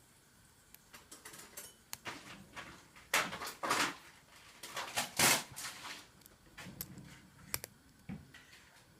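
Hook pick and tension tool working the pins of a six-pin Euro cylinder lock: scattered small clicks and scrapes, with louder scraping rattles about three seconds in and again about five seconds in.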